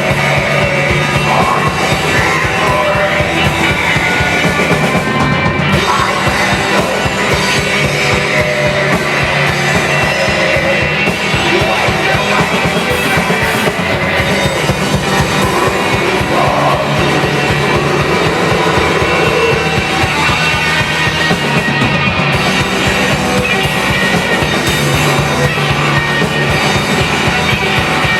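Loud heavy metal music: dense distorted guitars over fast, driving drums.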